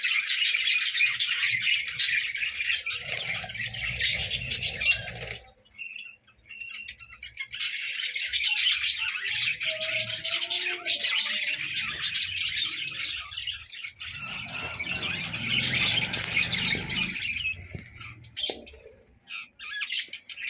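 A group of budgerigars chattering and chirping in a dense, continuous stream of high chirps, which breaks off briefly about six seconds in and thins to scattered chirps near the end.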